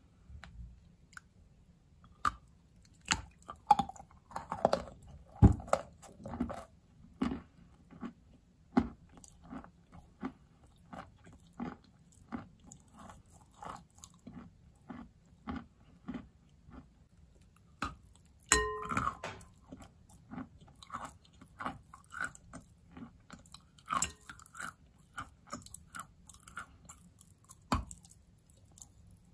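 Close-up bites and chewing of a large lump of soaked natural Valuyki chalk: irregular crunches and crumbling in the mouth, loudest in the first several seconds. One brief pitched squeak comes a little past the middle.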